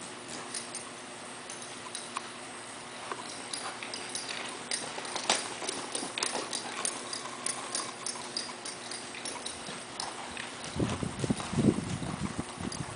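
Hoofbeats of a horse moving fast on soft arena dirt, an irregular run of soft thuds and small clicks. Near the end comes a louder, lower rough sound lasting about a second and a half.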